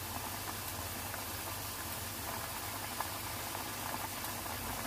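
Curry gravy of fried masala and water boiling hard in a pan on high flame, a steady bubbling.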